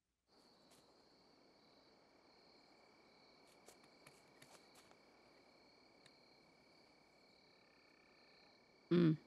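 Night ambience of insects trilling steadily and high, with a few faint ticks, fading in after a moment of silence. Near the end comes one brief loud burst of sound.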